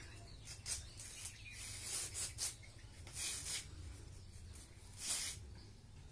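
A metal spoon scraping and rubbing over a ceramic plate and bowls while scooping powdered spices, in short scrapes about a second apart.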